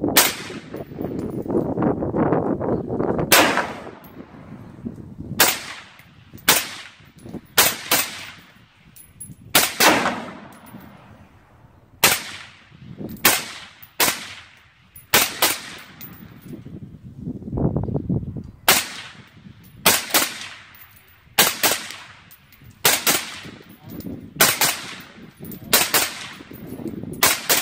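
Rifle gunfire: sharp single shots, mostly a second or two apart, some in quick pairs.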